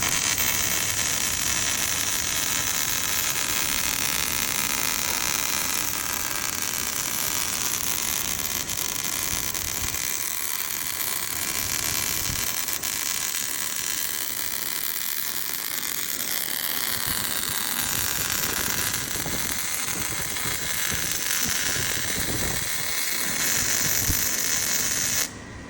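Welding arc of a cobot's welding gun running a circular weld: a steady crackling hiss that starts abruptly and cuts off suddenly near the end as the arc is extinguished.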